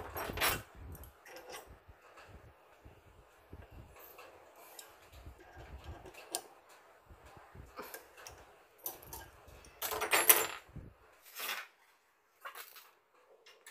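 Small metal parts clicking and clinking as a drill chuck and threaded rod are handled and fitted on a coil-winding machine's spindle, with a louder clatter of metal about ten seconds in.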